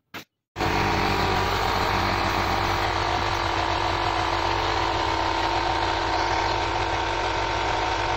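A machine runs steadily, with a constant hum and drone that cuts in abruptly about half a second in.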